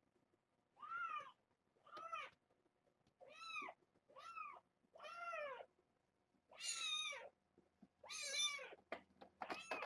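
Young kittens, about three and a half weeks old, meowing over and over: about eight short, high-pitched calls, each rising then falling in pitch, the last few louder.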